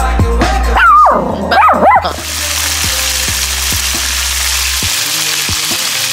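A small chihuahua gives two high, wavering yelps about a second in. Then eggs sizzle steadily in a frying pan, over background music.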